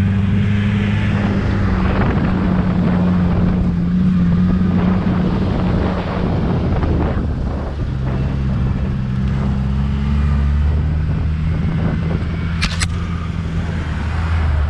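Jeep Wrangler TJ's engine running steadily as the Jeep drives along a dirt track, with tyre and road noise over it; the engine note drops slightly in pitch about halfway through. A brief sharp click sounds near the end.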